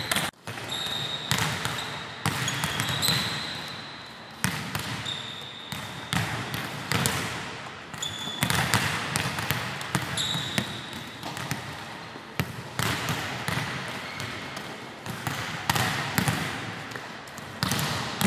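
Volleyballs being slapped by players' hands and bouncing off a wooden gym floor, many irregular thuds overlapping and echoing in a large hall. Short high sneaker squeaks on the court come in now and then.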